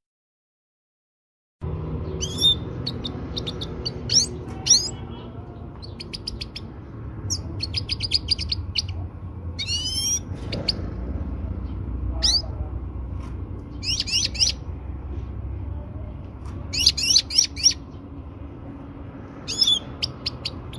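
European goldfinch calling in bursts of short sharp chirps, quick twittering trills and rising-and-falling whistled notes, starting about a second and a half in over a low steady hum. It is offered as a female goldfinch's call to stir a male into breeding condition.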